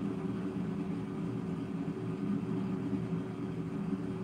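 Air fryer running while cooking potatoes: a steady fan hum with a faint airy hiss, unchanging throughout.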